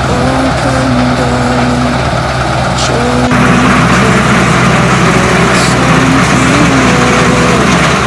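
New Holland CX5.90 Hillside combine harvester running steadily while cutting wheat, a dense engine and threshing drone, with a music melody over it. The sound changes abruptly about three seconds in.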